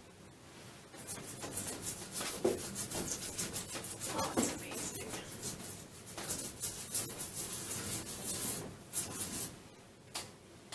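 Old toothbrush scrubbing vinegar-softened hard-water scale off a shower head: quick bristle strokes that stop near the end.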